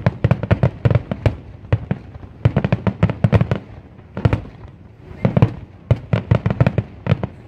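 Aerial fireworks finale barrage: shell bursts going off in dense clusters of bangs, several a second, with short lulls between the clusters.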